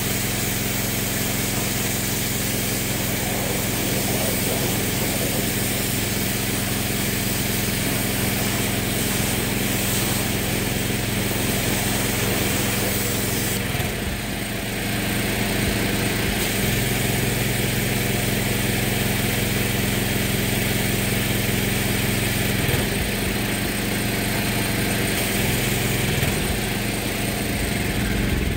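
Pressure washer running steadily while it sprays water over an engine bay, with a short dip in level about halfway through.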